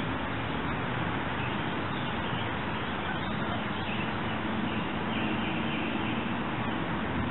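Steady rushing of creek water flowing over a shallow riffle, with faint short bird calls over it about five seconds in.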